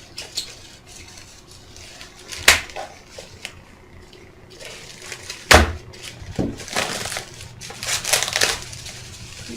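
Bubble wrap and packing tape being handled and pulled off a parcel, with two sharp snaps about two and a half and five and a half seconds in and a stretch of crinkling near the end.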